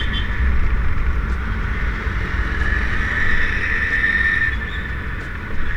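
Steady road noise from a moving vehicle: a constant low rumble with a hissing band above it, and wind on the microphone.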